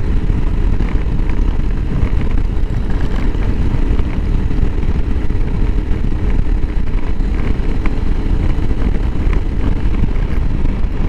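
Honda CRF300L Rally's single-cylinder engine running steadily under way, with a constant low drone and no change in pace.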